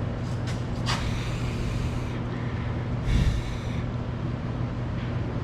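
Oil-slick hands wiping clean and then handling the new oil filter: two short rubbing, hissing stretches about a second and three seconds in, the second with a dull thump, over a steady low hum.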